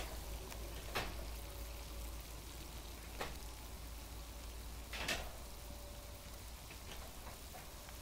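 Water at a rolling boil in a folded paper takeout box over a small Fancy Feast alcohol stove: a steady, faint sizzling, bubbling hiss. Three light clicks come through it, about one, three and five seconds in, the last the loudest.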